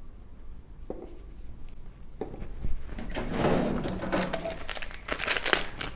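Hands working on an open laptop: a couple of light clicks, then scratchy rubbing and scraping that grows busier near the end, as old thermal paste is wiped off the cooler and chips.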